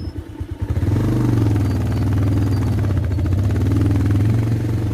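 Single-cylinder motorcycle engine idling with uneven low pulses, then opened up about a second in and held at steady revs as the bike pulls away.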